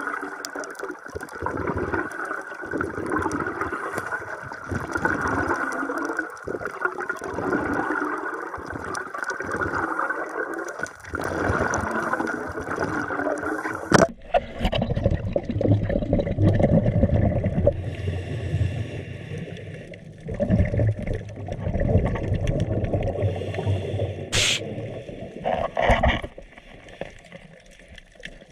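Scuba diver's exhaled bubbles gurgling out of the regulator underwater, the water noise changing abruptly about halfway through.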